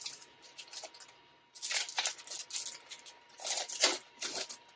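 Foil wrapper of a Polaroid SX-70 film pack crinkling and tearing as it is pulled open by hand, in three short spells.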